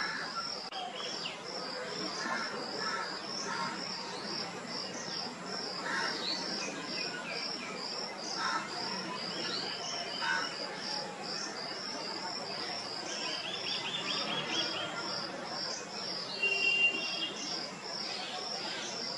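Outdoor insect and bird chorus: an insect chirping in an even, high-pitched pulse a few times a second, with scattered chirps of small birds, a rapid trill about 13 seconds in and a louder short call near 17 seconds.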